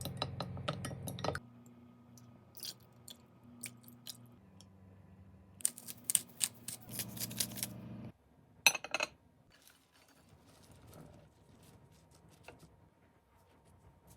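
Salad being prepared: crisp crunching of fresh vegetables and light clinks of dishes and utensils, in runs of quick clicks. The densest come at the start and around six to nine seconds in, over a low steady hum.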